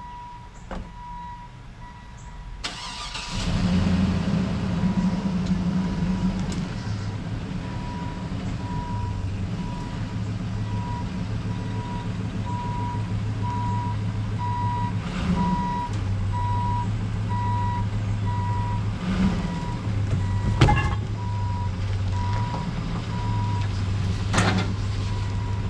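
A vehicle engine starts about three seconds in and then runs steadily while it is moved, with a backup alarm beeping at a steady pace. A sharp knock comes about two-thirds of the way through.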